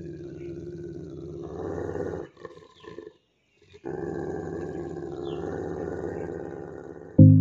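Rottweiler growling low and continuously; the growl breaks off about two seconds in, then resumes for about three more seconds. Near the end a loud note of music cuts in.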